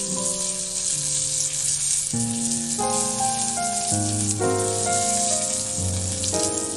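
Chicken drumsticks sizzling as they fry in oil in an aluminium saucepan, a steady hiss, with background music of held notes changing every half-second or so.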